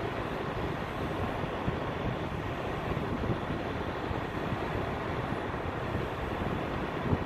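Norfolk Southern double-stack intermodal train's container well cars rolling past on the main line: a steady rumble of steel wheels on rail, with a few brief knocks, the sharpest near the end.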